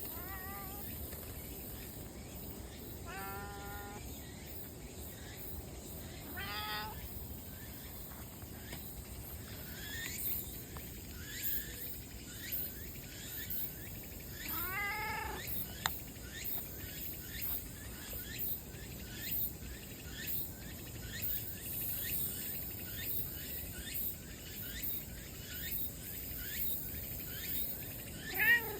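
A cat meowing about five times, spaced out, with the loudest meow near the end. From about ten seconds in, many short, high chirps repeat in the background.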